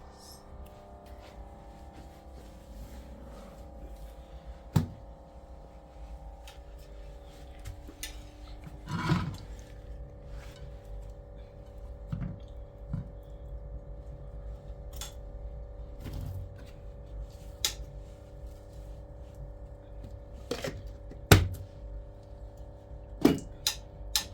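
Scattered knocks and clatters, a few of them sharp, over a faint steady hum.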